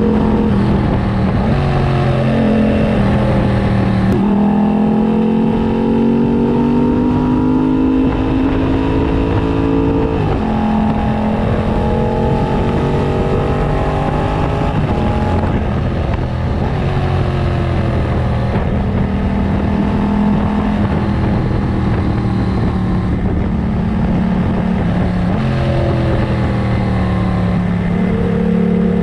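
Yamaha FZ-07's parallel-twin engine, breathing through a full aftermarket racing exhaust, pulling through the gears on a ride: the engine note climbs steadily for several seconds at a time and then drops sharply at each gear change, several times over, with wind rushing underneath.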